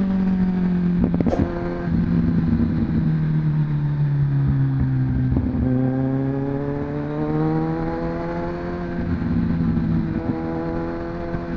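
Kawasaki Ninja 1000's inline-four engine running under way, its note sliding down, dropping sharply about five and a half seconds in, then rising again as it accelerates.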